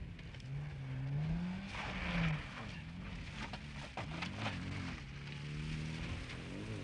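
Mini Cooper rally car's small four-cylinder engine revving, its pitch rising and falling several times as it is driven hard over a rough dirt track, with scattered clicks and rattles.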